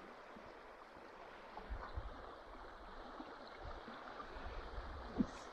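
Small taiga river running over a shallow riffle: a steady rush of water, with a few faint low bumps.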